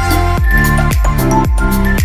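Electronic background music with a steady beat, a deep kick drum about twice a second under sustained synth tones and hi-hats.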